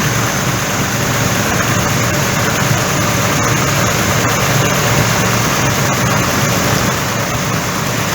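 Dodge Ram V8 engine idling steadily while cylinder 1's ignition coil is unplugged for a pulse test, so that cylinder is not firing.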